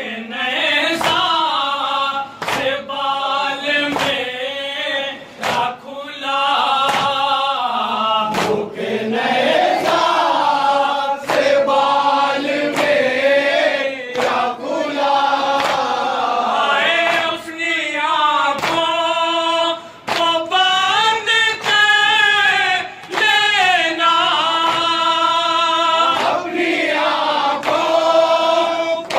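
Group of men chanting an Urdu noha (Shia lament) in unison into a microphone, with hand slaps on the chest (matam) striking in a steady rhythm about once a second under the voices.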